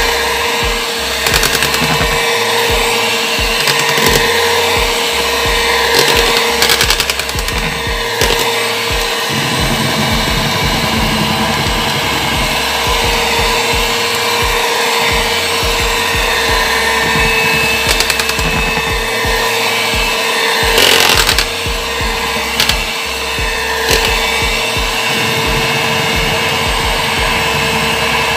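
Electric hand mixer running steadily, its beaters beating black glutinous rice flour into whipped egg batter, with frequent clicks and knocks from the beaters against the bowl.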